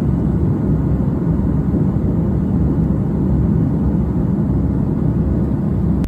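Steady, loud low rumble of an airliner's engines and rushing air, heard from inside the passenger cabin.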